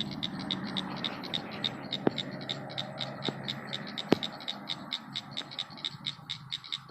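A rapid run of evenly spaced high-pitched chirps, about six a second, from a calling animal, over a scratchy rustling noise with a few sharp clicks.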